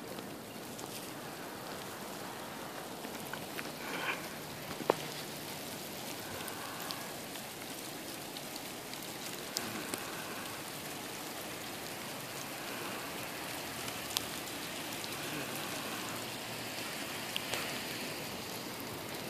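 Ice pellets and rain falling on pavement and grass: a steady hiss broken by a few sharp ticks.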